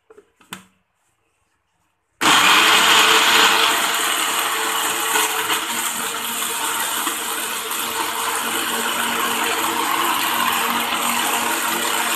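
A couple of brief knocks, then about two seconds in a Khind electric blender switches on abruptly and runs steadily, grinding chillies, ginger, turmeric, garlic and shallot into a paste. It is a little louder for the first second or so, then settles to an even run.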